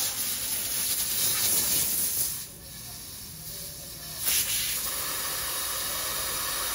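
Compressed-air blow gun hissing as it blasts dust off a rear brake caliper and disc. The blast eases off a little after two seconds in and comes back strong just past four seconds.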